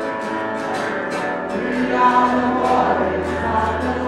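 Music with a choir singing long held notes over a steady beat of light percussion, about three strikes a second.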